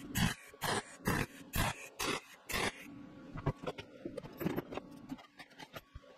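Wire-feed (MIG) welder stitch-welding galvanized steel chain links: short crackling arc bursts about two a second for the first three seconds, then the arc stops, leaving a faint steady hum and light clinks of metal.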